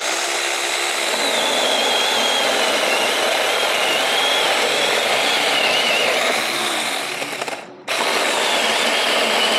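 Makita-branded cordless mini chainsaw with a brushed motor cutting through a branch about 10 cm thick. Its motor whine wavers under load, since the small bar makes this thicker cut a little harder going. It cuts out briefly about three-quarters of the way through, then starts again.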